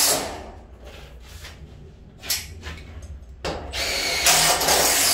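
Cordless drill-driver running in bursts, driving screws through 6 mm cement sheet. One run fades out just after the start, there is a short click near the middle, and a second run of about a second and a half comes near the end.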